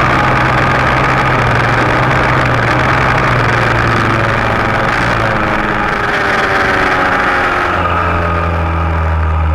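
Junior dragster's single-cylinder engine running at low speed as the car rolls along. Its pitch eases down through the second half and drops lower about eight seconds in, settling toward idle.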